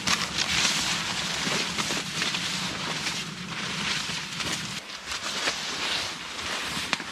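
Dry corn stalks and leaves rustling and crackling as someone pushes through a cornfield row, with many small crackles close to the microphone.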